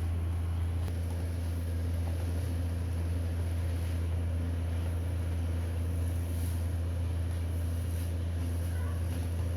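Steady low mechanical hum from a running motor, even and unchanging throughout.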